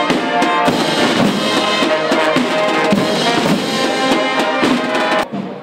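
Street marching band playing a processional march: brass (tuba and trumpets) holding the tune over snare and bass drums. The music cuts off suddenly near the end.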